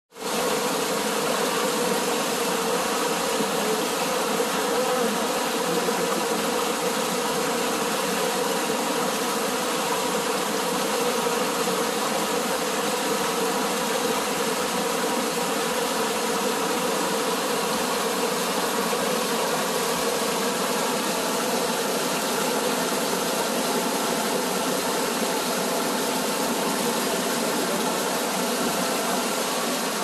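A mountain stream pouring down a small cascade and splashing over boulders close to the microphone: a steady rushing of water.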